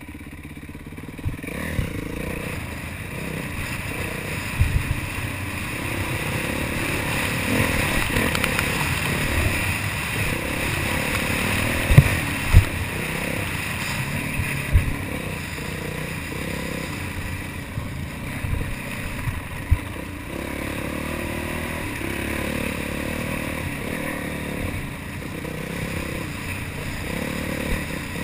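Yamaha YZ450F's single-cylinder four-stroke engine running under varying throttle as the dirt bike rides a trail, picking up after a quieter first second or so. Several sharp knocks break through, the loudest about twelve seconds in.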